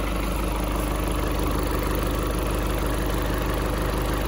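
Diesel engine of a Ford 655C backhoe loader running steadily while its boom holds a grain bin aloft.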